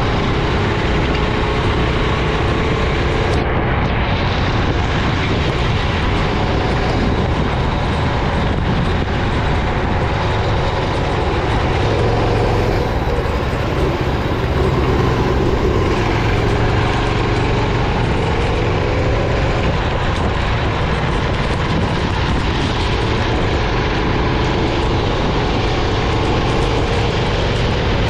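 Racing kart engine running at speed under a loud, steady rushing noise, its pitch rising gently and dipping now and then as the throttle changes.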